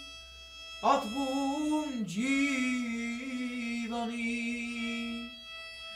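A young male voice singing an Armenian song line, coming in about a second in and holding a long, wavering note, over a kamancha (bowed spike fiddle) sustaining a steady tone beneath it.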